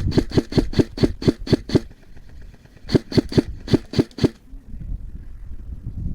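Airsoft gun firing in quick succession, about five shots a second: a string of about nine shots, a pause of about a second, then about six more.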